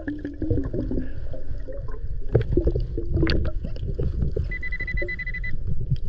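Underwater scraping, knocking and water rush as a gloved hand digs and fans sand on the bottom. The Nokta Makro PulseDive metal detector gives a steady high beep for about a second near the end, its alert for metal under the coil.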